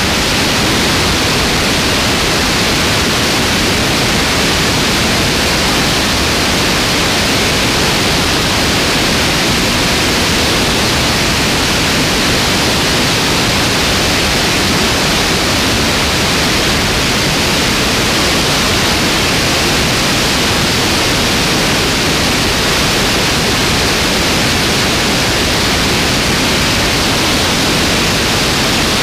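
Steady, loud rush of airflow over a camera on a light aircraft's wing in flight, an even hiss that does not change.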